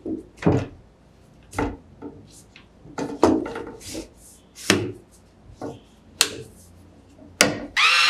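Aluminium legs of a Manfrotto Compact Advanced tripod being handled: telescoping sections sliding and the plastic leg locks and tubes giving a series of sharp clicks and knocks, about one every second or so. Music comes in just before the end.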